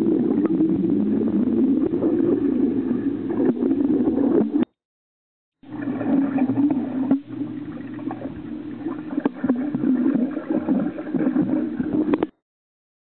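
Muffled swirling and bubbling of pool water heard through a camera held underwater, with a few faint clicks. It cuts out to silence for about a second midway and again near the end.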